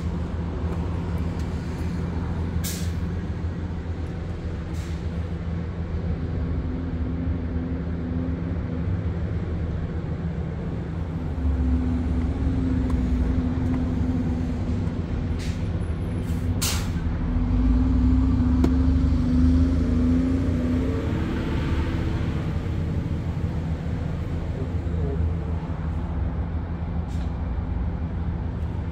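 A motor vehicle's engine running nearby: a steady low rumble that swells louder for several seconds in the middle and then eases back. A few sharp clicks stand out over it.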